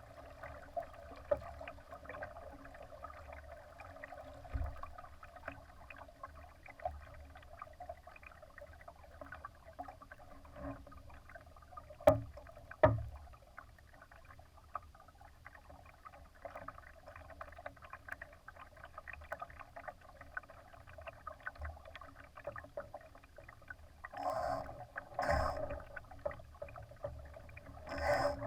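Water sloshing and splashing against the hull of a Laser sailing dinghy under way. There are two sharp knocks about twelve seconds in and louder splashes near the end.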